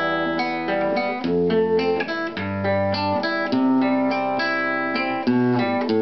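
Nylon-string acoustic guitar fingerpicked: a bass note plucked under quick plucked notes on the higher strings, with the bass note and chord changing every second or two.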